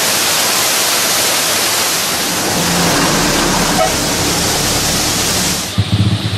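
Waterfall in spate after heavy rains, a steady loud rush of falling water. About a second before the end the rush cuts off and a low rhythmic pulsing takes over.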